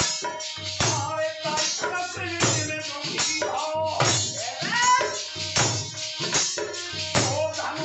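Indian folk devotional music: a harmonium holding chords, a dholak drum beating a steady rhythm and a bowed string instrument, with a man singing a melodic line.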